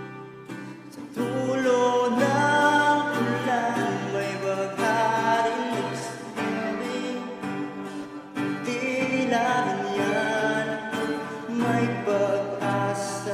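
A song sung in Tagalog: a solo voice over guitar-led instrumental backing. The voice comes in about a second in and carries on through the rest.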